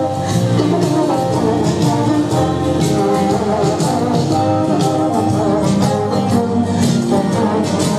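Loud instrumental dance music, held melodic lines over a quick, uneven beat of percussion strikes.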